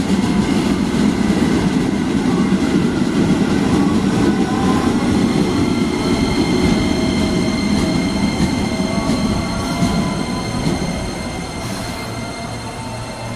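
KRL commuter electric train moving along the station platform: a loud, dense rumble of wheels on rails with several steady high-pitched tones above it. It grows quieter over the last few seconds.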